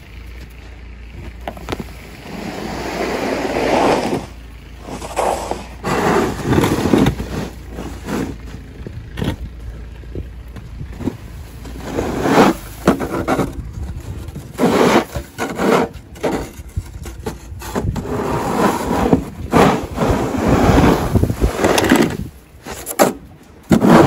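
A Manplow pusher snow shovel scraping snow along an asphalt driveway in repeated pushes, each lasting a second or more. At first the sound is of snow being brushed off a car.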